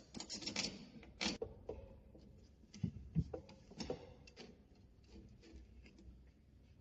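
Hands handling smart lock parts and screws: scattered clicks, rattles and rustles, with a few sharper knocks in the first four seconds, then lighter ticks.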